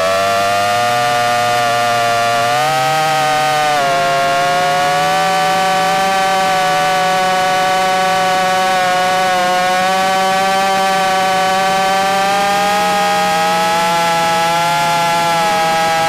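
Krakatoa 5 FPV drone's motors and propellers whining steadily in flight, heard from the onboard camera. The pitch shifts slightly with throttle, rising and then dipping about four seconds in.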